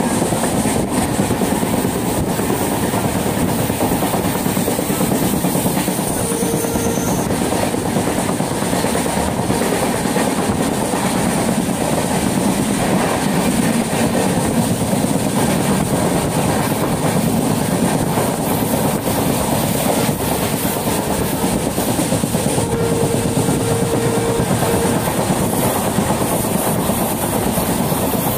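Passenger train running steadily on the track, heard from inside a carriage at an open barred window: a continuous loud rumble of wheels on rail.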